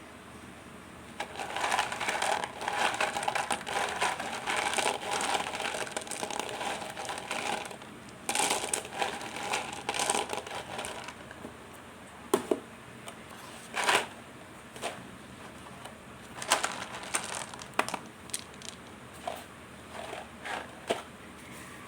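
Plastic packaging of mothballs crinkling and crackling as it is handled. It comes in two dense runs of several seconds each, then in scattered sharp crackles and snaps.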